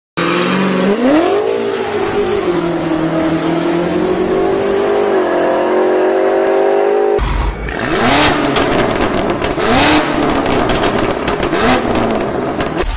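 BMW M8 Competition's twin-turbo V8 through an Akrapovič exhaust: the engine note rises about a second in, then holds steady at a fast idle. About seven seconds in, the sound changes abruptly to three short throttle blips with crackling from the exhaust.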